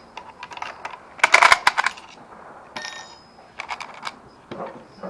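Brass .303 cartridges clinking and clicking as they are handled and loaded into rifle magazines. The sound comes as clusters of sharp metallic clicks, the busiest about a second and a half in.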